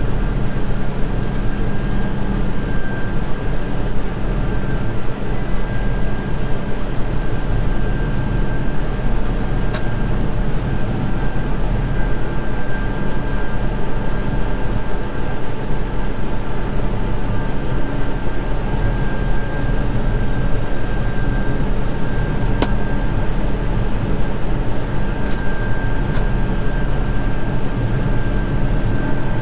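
John Deere 9986 cotton picker running steadily while picking, its engine under load, with a steady high whine over the low engine hum. The engine is pulling hard because the picking heads are still tight from a rebuild.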